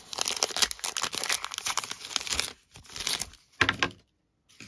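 Trading card pack wrapper being torn open and crumpled by hand: a dense crinkling for about two and a half seconds, then a couple of shorter rustles. The sound drops out completely for about half a second near the end.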